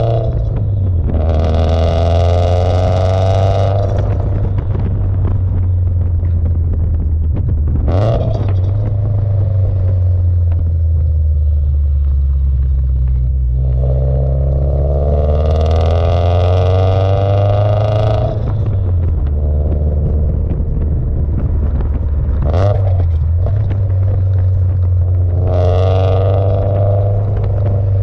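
Turbocharged Subaru STI's flat-four engine through a COBB titanium exhaust, driven in light pulls: the exhaust note climbs in pitch three times as the car accelerates, with a deep steady rumble between pulls. Two brief sharp sounds come between the pulls.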